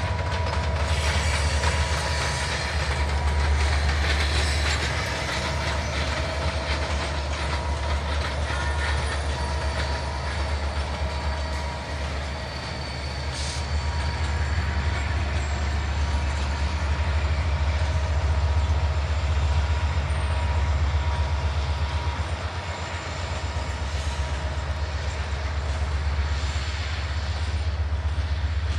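Two coupled diesel-electric locomotives running under load, with a steady deep engine rumble, as they haul passenger coaches slowly past.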